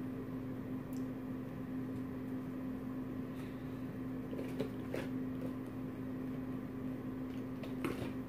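Steady low electrical hum of a household appliance, with a few faint clicks and knocks.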